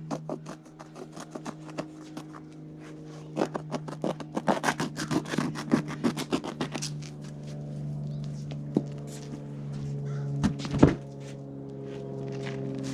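Rapid run of snips, scrapes and knocks, thickest in the middle, as carpet is cut to shape with a Leatherman multi-tool, with a couple of sharper knocks later on. A steady low hum runs underneath.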